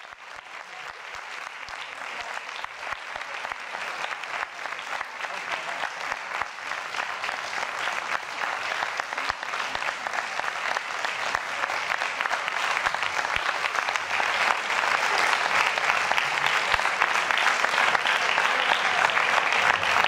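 Audience applauding, the clapping building steadily louder.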